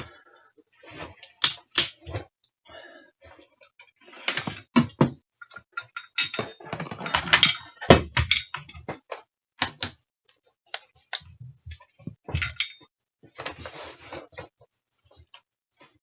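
Irregular clicks, clinks and knocks of tools and small objects being picked up and set down on a workbench, with a longer clatter a few seconds in.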